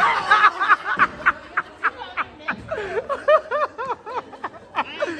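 Laughter: a long run of short, quick laughs, about three a second, with little or no speech among them.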